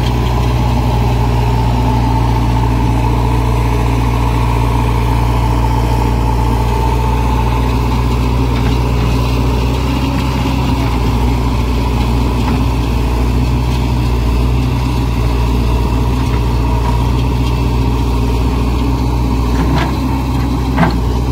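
Heavy diesel engine running steadily at low revs, with two short knocks near the end.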